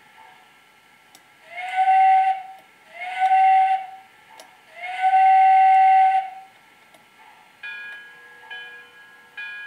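The Proto-Sound 2.0 digital sound system of an MTH Rail King Pennsylvania Railroad B-6 0-6-0 switcher model blowing its recorded steam whistle: two short blasts and one long one. Near the end the locomotive's bell starts ringing, about one strike a second.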